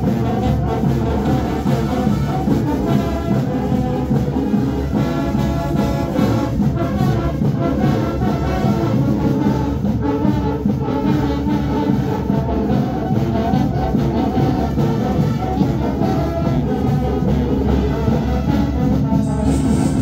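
Marching band playing: brass (trombones and trumpets) over drums.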